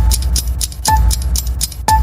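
Background music with a steady beat: a deep bass hit with a short tone about once a second, and ticking clicks about four times a second between them.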